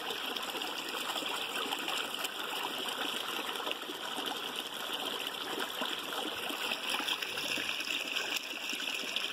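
Steady rush of running water from a waterfall stream, an even hiss that holds throughout.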